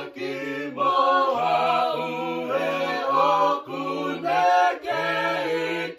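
Choir singing a Tongan hymn a cappella in several-part harmony, with a low bass line under the upper voices and short breaths between phrases.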